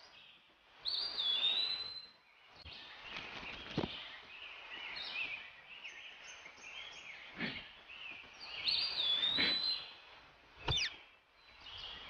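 Cartoon bird chirps and tweets, a handful of short whistling calls and quick sweeps spread through, over a soft outdoor hiss.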